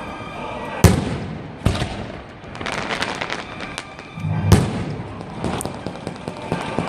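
Aerial fireworks bursting: three sharp bangs, about a second in, just under two seconds in and about four and a half seconds in, the first and last the loudest. Smaller pops and crackle run between them, quickening into rapid crackling near the end.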